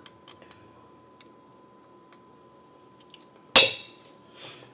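Metal spoon clicking lightly a few times against a plastic mixing bowl, then one sharp, loud clack of the spoon knocking the bowl with a brief metallic ring, as spice is tipped into flour.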